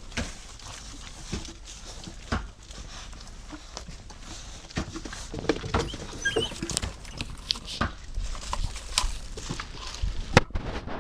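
A dog moving about: scattered taps, clicks and shuffling, busier from about five seconds in, with a brief faint high note around six seconds in.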